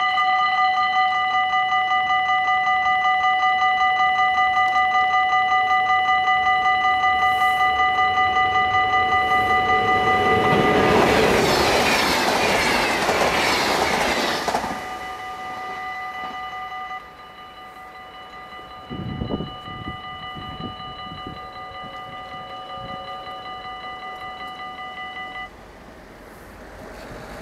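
Dutch AHOB level-crossing bells ringing rapidly and steadily, while a VIRMm double-deck electric intercity train passes at speed about eleven seconds in, its rushing noise lasting some four seconds. The bells grow quieter about seventeen seconds in and stop a couple of seconds before the end, the sign that the crossing is clearing and the barriers are going up; a few low thumps come about nineteen seconds in.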